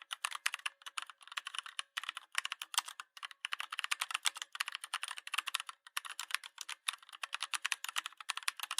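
Rapid, irregular clicking in quick runs broken by short pauses, much like keys being typed.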